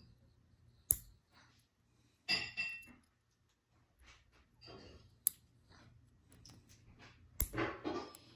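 Small hard objects handled on a surface: a few sharp clicks and a short clinking rattle.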